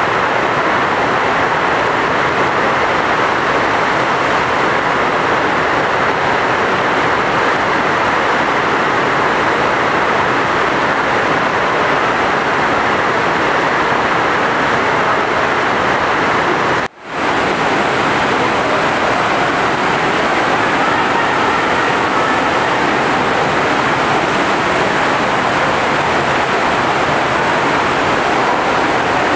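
Steady loud rush of the pumped water sheet pouring up the FlowRider surf simulator's slope. It cuts out for an instant about 17 seconds in.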